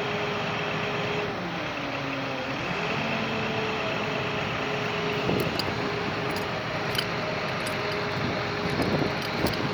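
A vehicle's engine runs with steady road noise; about a second in the engine note drops in pitch, then climbs back a second or so later. Light rattling clicks come through in the second half.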